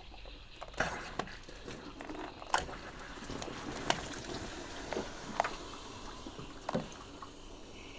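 Garden hose spray gun running water into a hot car's coolant expansion tank to flush the cooling system, the water splashing and overflowing, with several sharp splashes and clicks spread through.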